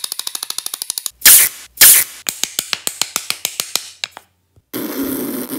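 A string of stop-motion sound effects. First comes a rapid run of ratchet-like clicks, then two loud spray-like hisses a little over a second in. A slower run of sharp clicks follows, then a short break, and a steady hiss near the end.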